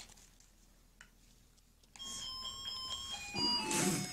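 For about two seconds there is near silence. Then a short electronic melody of clear beeping tones begins, stepping from note to note, with a rustle of plastic wrapping near the end.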